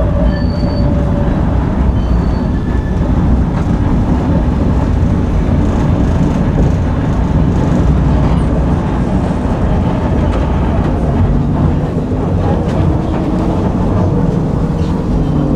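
Tram running along its rails between stops: a steady rolling rumble of wheels on track, with faint motor tones coming and going.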